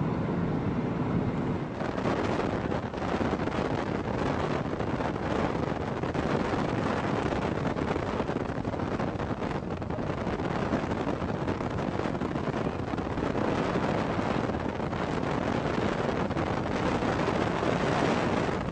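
Strong storm wind rushing and buffeting the microphone in a steady loud roar, growing heavier about two seconds in.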